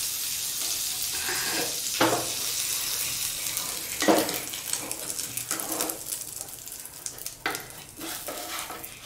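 Butter sizzling in a nonstick frying pan as a sandwich fries, with the knock and scrape of a wooden spatula pushing the bread around the pan several times.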